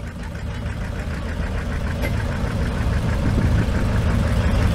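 1959 John Deere 730's two-cylinder engine running with a steady beat of about six pulses a second, getting steadily louder.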